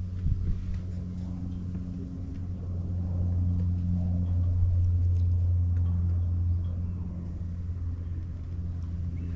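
An engine's steady low hum, growing louder in the middle and then easing back.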